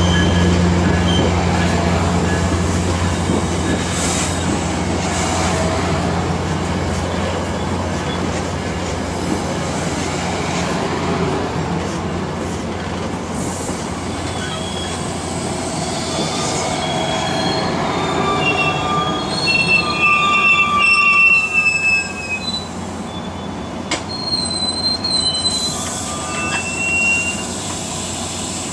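Commuter train's stainless-steel bilevel passenger cars rolling slowly past on a curve, wheels rumbling on the rails, with high-pitched metal squeals from the running gear as the train slows into the station. The squeals come and go and are loudest about two-thirds of the way through; a low hum fades in the first couple of seconds.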